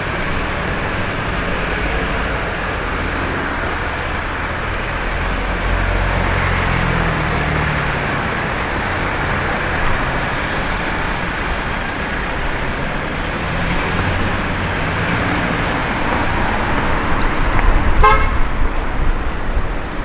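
Street traffic: cars passing with engine rumble that swells and fades, and a short vehicle horn toot near the end. Wind gusts buffet the microphone in the last few seconds.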